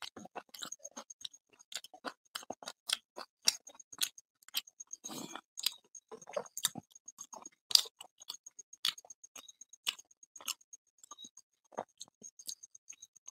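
Close-miked eating of puri with curry: irregular wet mouth clicks and lip smacks while chewing, with a short rustle of fried puri being torn by hand about five seconds in.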